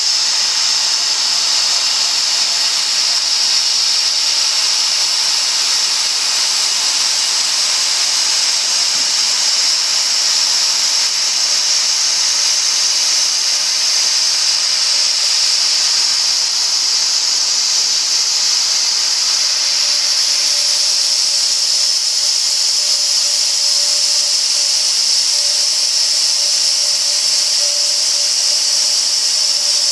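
CNC router spindle running at high speed while its end mill cuts a throat plate: a steady high-pitched whine over cutting noise. A lower steady tone joins about two-thirds of the way in.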